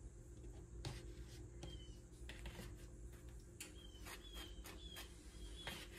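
Faint scraping and light clicks of a table knife spreading butter on a bagel, with a small bird's short high chirps several times.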